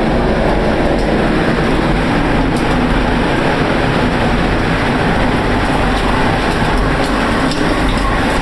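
The steady, train-like roar of a violent EF5 tornado passing directly over a storm cellar, heard from inside the shelter, with a few faint clicks and rattles over it.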